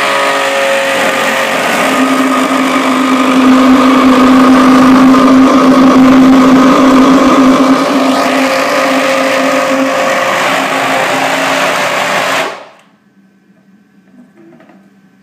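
Optimum 9400 high-speed blender motor running loud and steady, blending frozen bananas into a thick ice cream, then switched off and cutting out quickly near the end.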